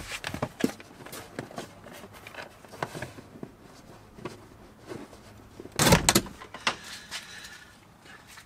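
Scattered clicks, taps and knocks of hands fitting LED light strips and their wiring inside a car, with a louder thump about six seconds in.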